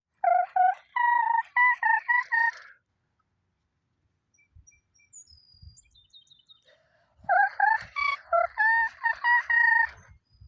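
A rooster crowing twice, each crow lasting about two and a half seconds and broken into short notes. Faint, short, high chirps of small birds come between the crows.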